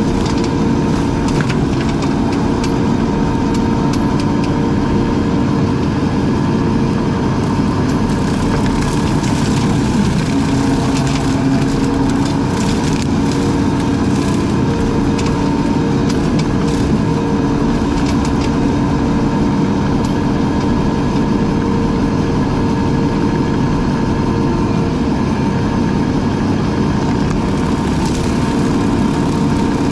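Engine of a brush-cutting machine running steadily under load, its pitch shifting slightly now and then, with a run of short cracks and clicks in the middle.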